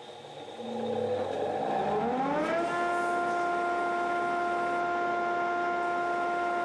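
Belt grinder motor spinning up: a whine that rises in pitch for under a second, then settles into a steady pitched whine at full speed.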